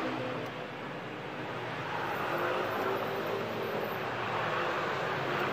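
Steady background rush of road traffic, with a motor vehicle running by that swells a little about two seconds in.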